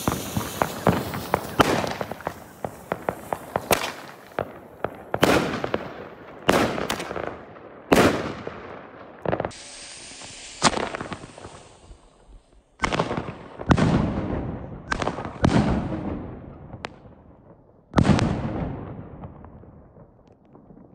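Pyrofactory Color Thunder King firework going off: a rapid run of sharp crackling reports over the first few seconds, then a series of separate loud bangs a second or two apart, each ringing out in an echo, the last about 18 seconds in.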